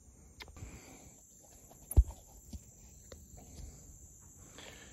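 Steady high insect buzzing, as of crickets, with one sharp knock about two seconds in and a few faint clicks.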